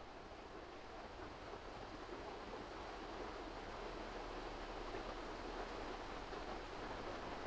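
Steady rushing noise, without distinct events, growing gradually louder.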